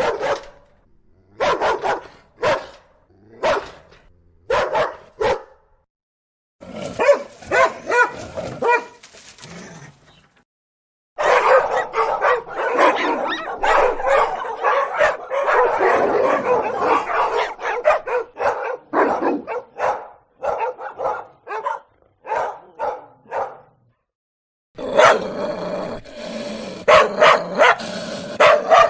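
Dog barking in a string of joined recordings. First come single barks about once a second, then a long run of fast, dense barking, separated by short dead-silent gaps.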